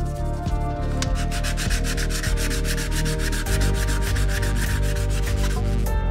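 Rapid scrubbing and rubbing strokes on bicycle parts: a brush on components, then a hand rubbing down the rusty, corroded steerer tube of a bicycle fork. Background music with held tones plays under it.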